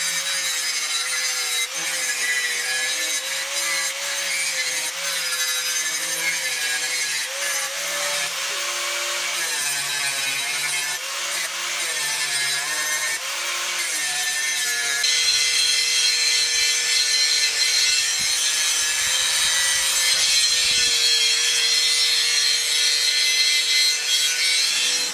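Angle grinder grinding steel, the motor's whine wavering and dipping as the disc is pressed into the metal. From about halfway it runs steadier and louder. The steel is being ground clean ready for welding.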